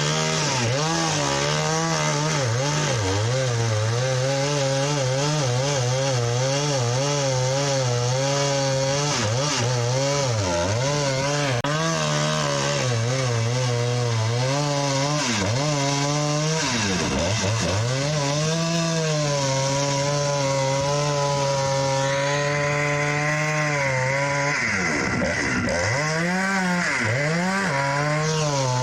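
Long-bar chainsaw running at high throttle as it cuts through the base of a large Douglas fir trunk, its engine pitch repeatedly dipping and recovering as the chain loads up in the wood. A harsher high cutting hiss joins in for the last several seconds.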